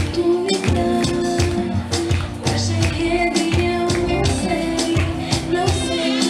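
Lambazouk (zouk-lambada) dance music with a steady beat.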